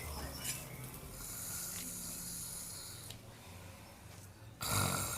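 A person snoring in their sleep, getting suddenly louder near the end.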